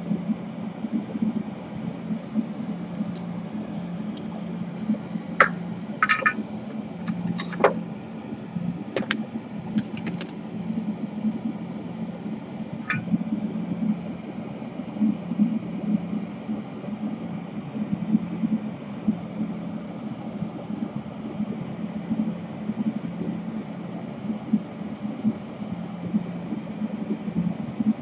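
A steady, loud mechanical whir of a running fan or blower, with a handful of short sharp ticks a few seconds in.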